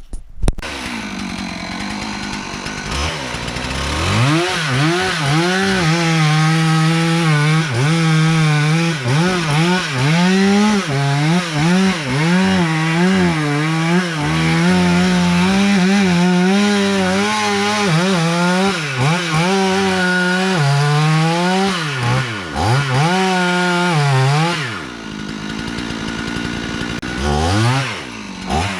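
Two-stroke chainsaw cutting into a beetle-killed pine: it idles briefly, then runs at full throttle, its engine note bogging and recovering again and again as the chain bites into the wood. It eases back toward idle about 24 seconds in and revs up again near the end.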